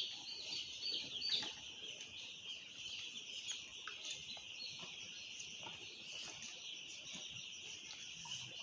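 Chickens giving a few short, high, falling peeps in the first second and a half. Behind them runs a steady, high-pitched drone of insects.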